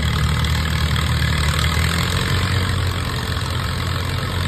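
1936 Allis-Chalmers tractor engine running steadily at low revs, a deep, even exhaust note.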